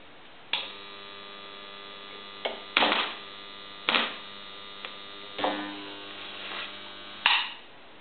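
Rewound microwave-oven transformer with a 6.6 V secondary humming loudly under heavy load as it heats a galvanized steel nail, broken by sharp crackles and short bursts of sizzling as the nail's zinc coating burns off. The hum starts abruptly with a snap about half a second in and cuts off just after a loud burst near the end.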